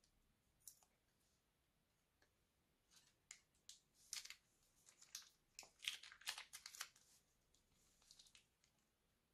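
Scissors snip the tip off a plastic piping bag a little under a second in. From about three seconds in come quiet, irregular crackles and pops as slime is squeezed out of the bag.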